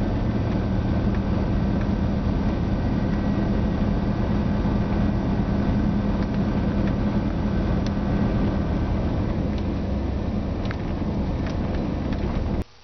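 A motor vehicle's engine running steadily: a constant low hum over a wash of noise that starts and stops abruptly.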